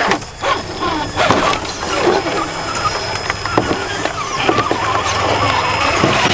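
Traxxas TRX-4 RC crawler's electric motor and geartrain whining as it crawls over rocks and wooden sticks, with a steady high whine throughout and a few sharp knocks as the tyres climb.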